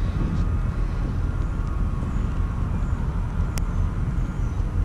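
Wind buffeting the microphone in the rain, a loud, uneven low rumble with a light hiss above it. A single sharp click about three and a half seconds in.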